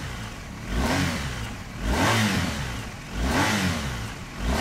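BMW R1250GS boxer-twin engine revved in four blips about a second apart, each rising in pitch and falling back.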